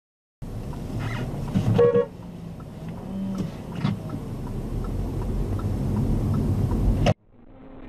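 Car cabin road and engine noise from a slowly moving car, starting about half a second in and rising slightly in the low end toward the end. About two seconds in, a car horn gives a short honk.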